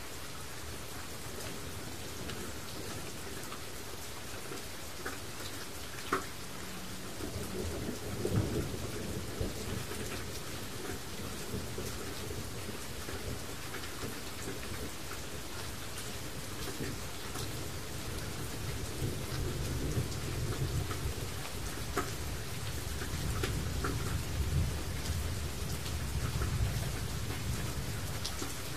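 Steady rain falling, an even hiss with scattered close drops ticking sharply. A low rumble swells in about seven seconds in and builds again through the second half.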